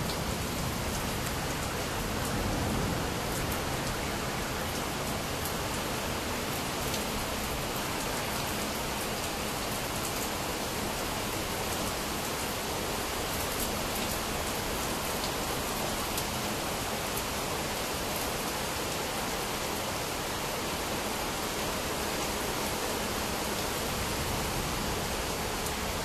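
Heavy rain during a thunderstorm, falling steadily as an even hiss with scattered sharp drop ticks.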